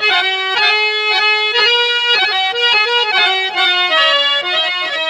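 Instrumental interlude of Bhojpuri birha music: a harmonium plays the melody, holding one long note at the start and then moving in shorter stepping notes, with faint percussion ticks underneath.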